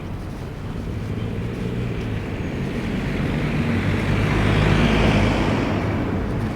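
A motor vehicle passing on the street, its engine hum and tyre noise building to a peak about five seconds in, then fading.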